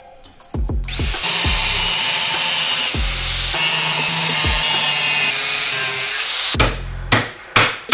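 Angle grinder with a thin cut-off disc cutting through steel plate, a steady harsh grinding that starts about a second in and stops a little after six seconds. Background music with a beat plays underneath.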